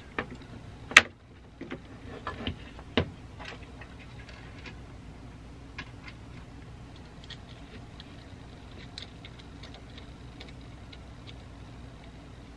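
Handling clicks and knocks from the chassis, parts and front panel of a Lambda bench power supply being put back together. A sharp knock comes about a second in, a few more follow over the next two seconds, then only faint scattered ticks over a steady low hum.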